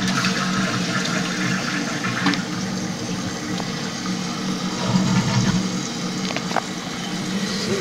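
The tank of a 2001 Eljer Savoy toilet refilling after a flush: water runs steadily into the tank through a replacement fill valve.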